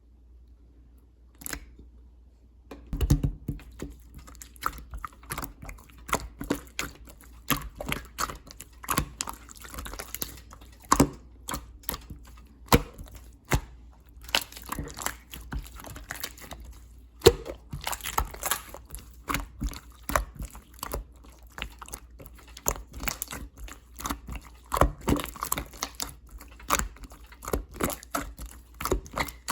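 Clear slime being squished and pressed by hand, making a quick, irregular run of sticky clicks and pops that starts about three seconds in.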